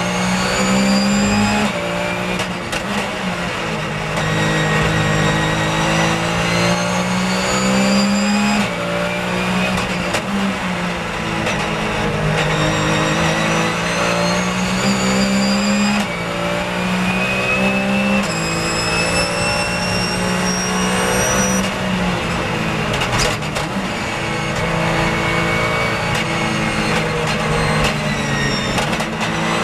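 Porsche 911 GT3 Cup race car's flat-six engine heard from inside the cockpit, pulling hard with its pitch climbing through each gear and dropping suddenly at every upshift. In places the note sinks in longer falls as the car brakes and shifts down for corners, then climbs again.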